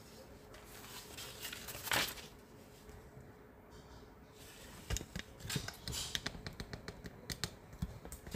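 A paper printout and a sheet of cardboard being handled and shifted on a table: soft rustling, with a brief swish about two seconds in and a run of light taps and rustles in the second half.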